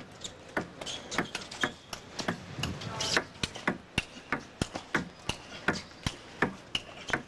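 Table tennis ball in a fast rally: sharp clicks of the celluloid ball off the bats and the table, about two or three a second.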